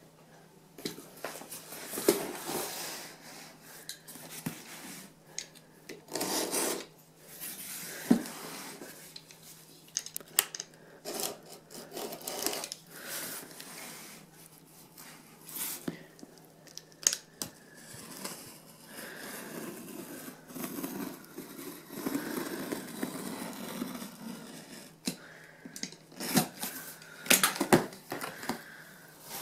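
A cardboard box being handled and opened by hand: irregular rubbing, scraping and knocks of cardboard, with sharper rips as the sealing tape on the end flap gives way.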